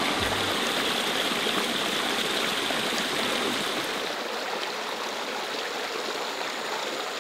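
Small rocky stream running steadily over stones, its flow swollen after a night of rain; the rush of water eases slightly toward the end.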